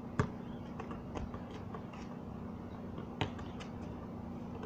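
Basketball bouncing on a concrete court: two sharp bounces about three seconds apart, with fainter taps between them.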